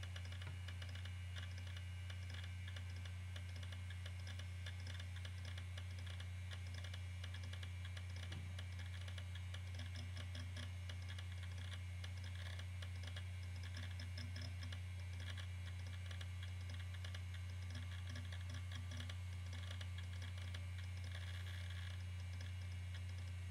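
Iomega Jaz removable hard-disk drive running: a steady low hum with rapid, faint clicking from the drive as photos are read off the disk.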